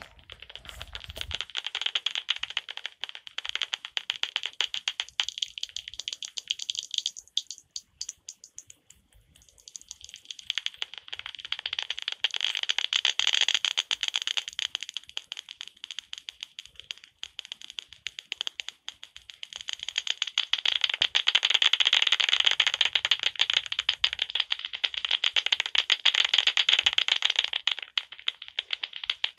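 Common serotine bats' echolocation calls made audible by a Magenta Bat heterodyne bat detector as rapid, dry clicking. The clicking swells and fades as bats pass and thins out briefly about eight seconds in. The detector is tuned to about 39 kHz and later to about 32 kHz.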